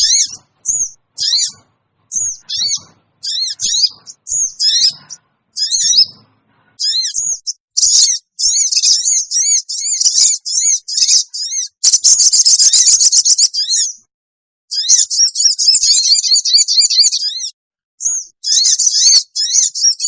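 Olive-backed sunbirds (sogon) giving rapid, high-pitched sharp calls in quick series, several overlapping, broken by short pauses. These are the shrill 'scream' calls used as a lure to draw wild sunbirds in.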